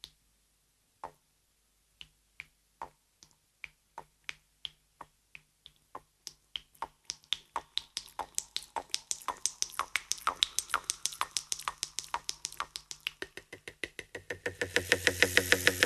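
Sharp percussive strikes, slow and sparse at first, about one a second, then speeding up steadily to several a second. A fuller swell of sound builds under them near the end.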